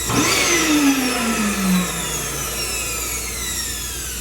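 Vacuum cleaner motor running, with a sudden jolt right at the start and a whine that falls in pitch over the next two seconds.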